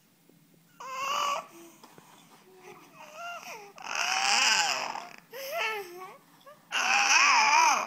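A young child's high-pitched vocal noises, five bursts of squealing, wavering voice, each under about a second long, the longest in the middle and the loudest near the end.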